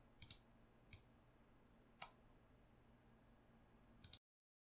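Faint clicks of a computer keyboard and mouse: a quick double click just after the start, then single clicks about one and two seconds in, the second of these the loudest. The sound then cuts off to dead silence shortly before the end.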